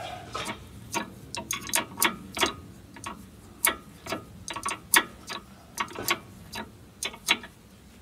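Sharp metallic clicks and ticks at an uneven pace, a few a second and sometimes bunched, from hand tools working the bolts of a rear brake caliper.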